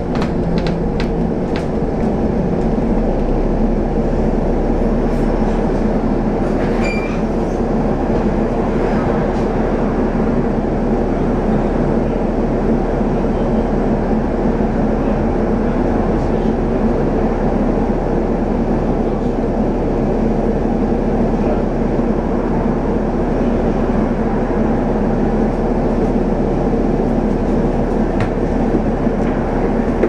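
Double-decker bus's diesel engine idling while the bus stands still, heard from inside on the upper deck: a steady drone, with a few light clicks in the first couple of seconds.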